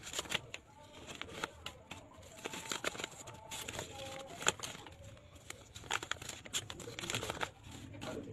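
Paper envelopes and rupiah banknotes rustling and crinkling as they are handled, in irregular short crackles.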